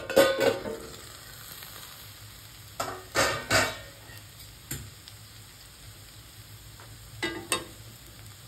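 A steel lid is lifted off an iron kadhai with a metal clang that rings briefly. Then come a few short metal clinks and scrapes of spatula and pan, with faint sizzling of the cooked potato and spring-onion sabzi in between.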